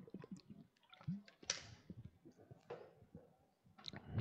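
A man drinking from a water bottle: faint gulps and swallows with small clicks, then a louder breath near the end.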